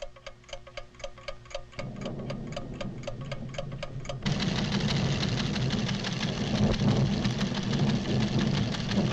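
Steady clockwork ticking of a seismograph recorder, about four to five ticks a second, joined by a low rumble about two seconds in. A little past four seconds in, the ticking gives way to a louder, dense rumbling of the volcano's tremors.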